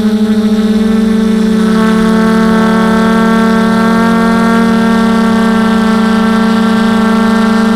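Quadcopter's electric motors and propellers whining steadily at a near-constant pitch, close to the onboard camera's microphone; higher overtones grow stronger about two seconds in.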